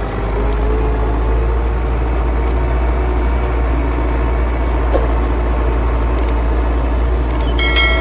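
Belarus 820 tractor's four-cylinder diesel running steadily under load while it pulls a mounted plough through the soil. Near the end, a short bright ringing chime from a subscribe-button sound effect sounds over it.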